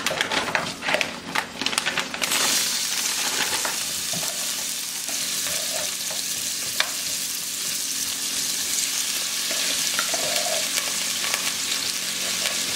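Raw beef and shrimp going into hot oil in two pots: about two seconds of clatter as the pieces drop in, then a sudden steady sizzle of the meat frying, with spoons stirring and scraping in the pots.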